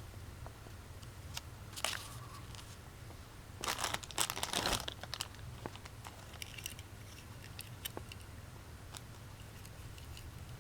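Handling noises: plastic crinkling and rustling, loudest for about a second and a half a few seconds in, with scattered small clicks.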